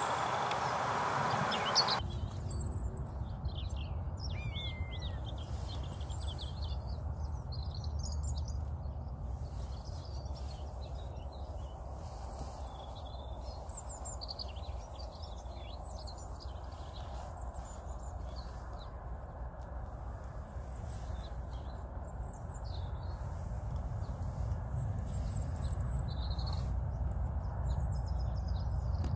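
About two seconds of even hiss, then many small songbirds chirping and trilling, short scattered calls throughout, over a steady low rumble.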